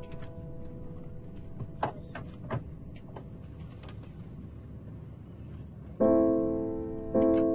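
Low rumbling background noise with scattered clicks and knocks under a faint held tone. About six seconds in, piano music comes in loudly with slow ringing notes about a second apart.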